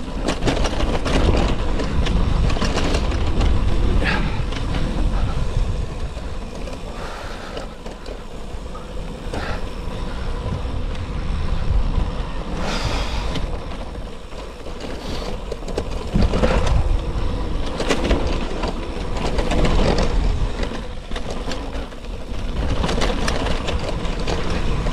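Gravel bike being ridden over a rough gravel track: wind rumbling on the microphone, tyres crunching over gravel and the bike rattling with frequent knocks over bumps.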